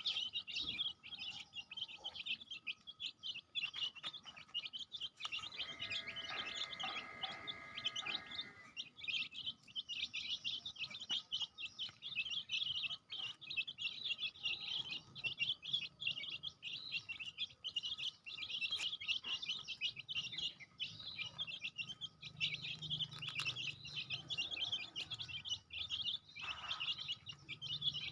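A crowd of young chicks peeping continuously: many rapid, high chirps overlapping. Briefly, about five to eight seconds in, a steady tone with several pitches sounds underneath.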